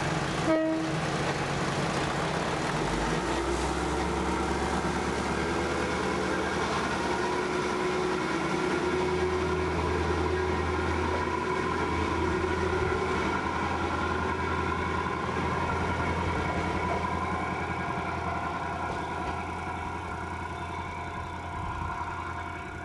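KiHa 532 diesel railcar's engine running with a steady low drone that grows stronger about three seconds in, then fades near the end as the railcar moves off.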